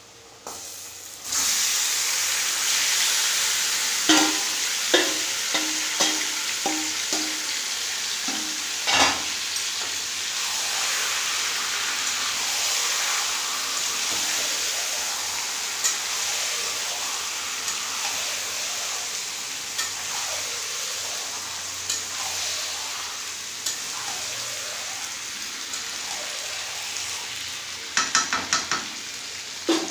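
Marinated chicken hitting hot oil in a kadai, with a sudden loud sizzle about a second in that settles into steady frying. A metal spatula knocks and scrapes against the pan as the chicken is stirred, several knocks a few seconds in and a quick cluster near the end.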